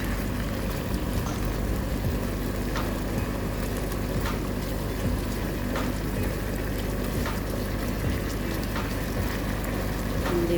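Chicken pieces sizzling and bubbling in a pot as they brown in their own juices and rendered fat, with scattered small pops.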